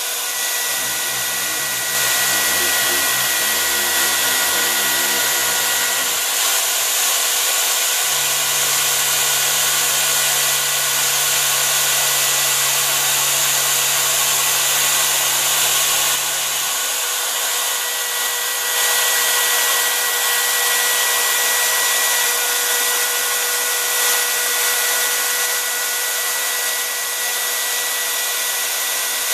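Home-built CNC router's spindle, a handheld router motor, running at high speed with a steady whine and hiss as the bit cuts grooves into a board. A lower hum joins for a few seconds near the start and again for about eight seconds in the middle.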